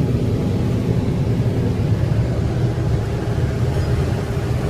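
Fendt Ideal 9T combine running steadily while harvesting corn: a low, even drone of engine and threshing machinery, heard from inside the cab.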